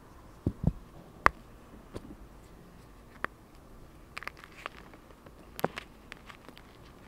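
Hands crushing blocks of dyed gym chalk dusted with cornstarch: irregular dry cracks and crunches as the blocks break, with one sharp snap just over a second in and a quick run of small crackles around four to five seconds.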